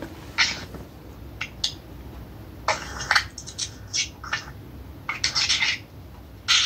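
Irregular rustling and crinkling of paper, about a dozen short crackles with a cluster near the middle and another past five seconds: pages being leafed through.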